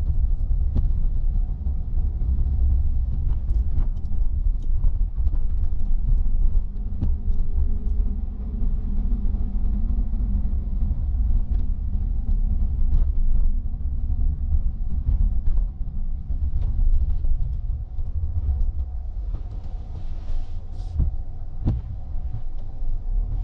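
Car cabin noise while driving on wet city streets: a steady low rumble of engine and tyres, with faint scattered ticks.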